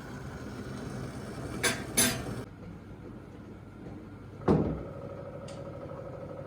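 A few sharp knocks of kitchenware being handled and set down: two quick ones, then a louder knock about halfway through that leaves a brief ring, and a small click after it.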